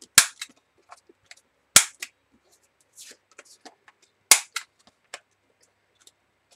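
Handheld paper corner punch snapping through a card panel three times, each a sharp click with a smaller click just after, with faint taps and rustles of the card being turned between punches.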